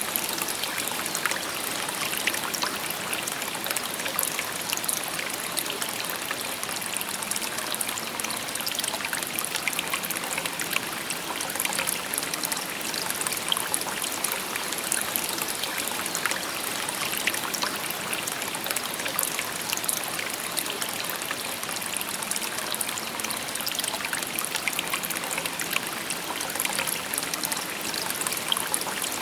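Shallow river or stream babbling and trickling steadily over stones, a dense even splashing with many small bright droplet sounds.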